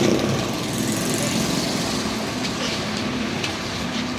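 Road traffic passing close by: vehicle engines running under a steady rush of noise.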